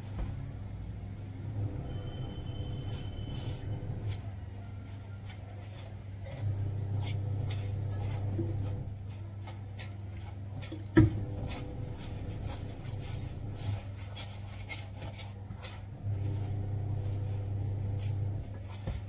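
Hands kneading wheat-flour dough in a steel bowl: rubbing with many light clicks and knocks against the metal, and one sharp knock a little past the middle. A steady low hum runs underneath and swells louder twice.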